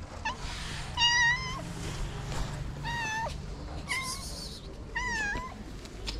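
Calico cat meowing: about five short, high meows roughly a second apart, the loudest about a second in.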